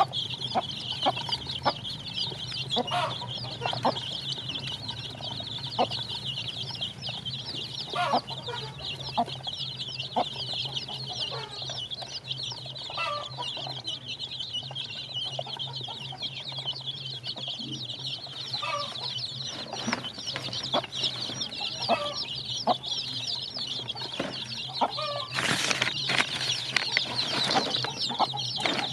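A flock of young chicks peeping continuously, many rapid high chirps overlapping, with scattered short taps as they peck at a feeding trough. A steady low hum runs underneath, and there is a short rustle near the end.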